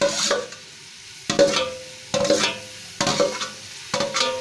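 Metal spoon knocking against metal cookware as chopped tomatoes are scraped from a steel bowl into an aluminium pressure cooker pot: about five clanks, roughly one a second, each leaving a brief metallic ring.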